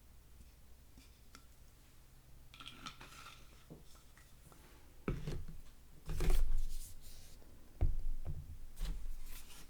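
Shower gel being poured from its bottle: faint clicks and handling at first, then from about halfway through a few separate thick, wet glugs as the gel comes out.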